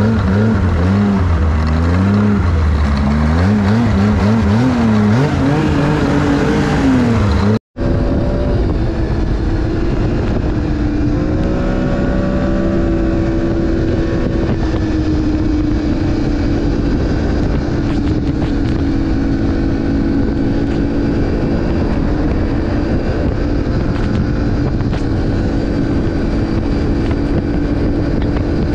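Snowmobile engine running. For the first several seconds it revs up and down repeatedly, then after an abrupt cut it holds a fairly steady drone while cruising along the trail.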